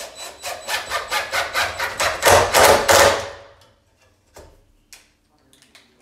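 Cordless DeWalt impact driver hammering a drywall screw into a wooden door edge, in rapid even impacts that grow louder as the screw seats, then stopping about three and a half seconds in. A few light clicks of handling follow.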